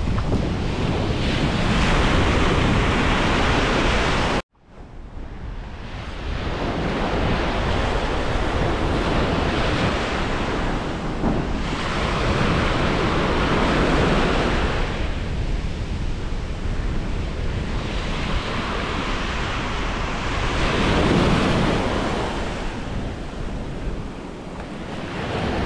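Ocean surf breaking and washing up a sandy beach, swelling and easing every several seconds, with wind buffeting the microphone. About four seconds in the sound cuts out abruptly for a moment and then comes back.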